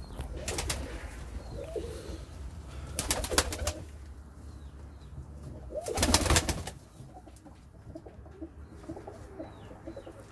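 Domestic pigeons cooing softly in a loft, the low burbling coos clearest in the second half. Three short, loud bursts of rapid clattering come about half a second in, around three seconds in and around six seconds in; the last is the loudest.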